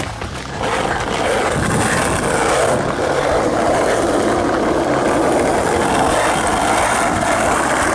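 A moving car's wind and road noise, a steady rushing that gets louder about half a second in, with air buffeting the microphone.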